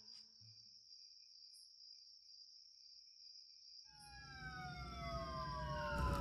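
Crickets trilling steadily and faintly. About four seconds in, a low rumble swells and several tones slide down in pitch together, growing louder toward the end.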